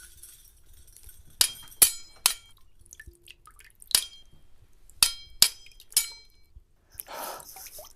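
Sword blades clashing in a fight: seven sharp metallic clangs, each with a short ringing tail, at uneven intervals.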